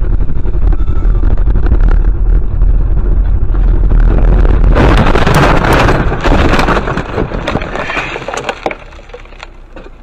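Vehicle running with a heavy low rumble, then a collision about five seconds in: a loud crunching, cracking impact lasting about two seconds, followed by scattered clicks and rattles that die away.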